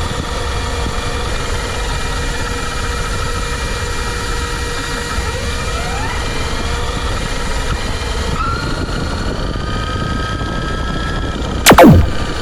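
Electric RC car running: a steady whine with several tones over drivetrain and tyre noise, sliding in pitch about halfway and shifting again after about eight seconds. Near the end comes a loud, brief sweep falling fast from high to low.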